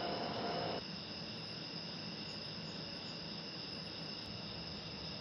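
Steady chirring of crickets and other night insects, with a faint hiss under it. Just under a second in, a louder rushing noise with a steady hum in it stops abruptly.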